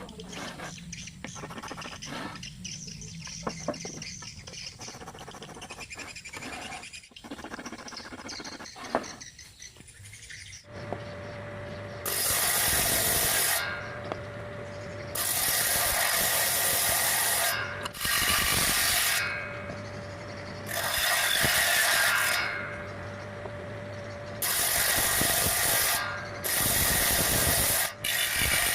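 Light clicks and scraping of handling, then a table saw's motor comes on about a third of the way in and runs with a steady hum. It is broken by about six loud hissing bursts, each a second or two long, as the blade cuts through wood in repeated passes.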